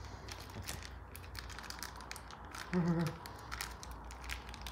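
Clear plastic bag crinkling and crackling in a run of small irregular crackles as fingers pick at it and pull it open. About three seconds in, a short voiced grunt or hum from a person.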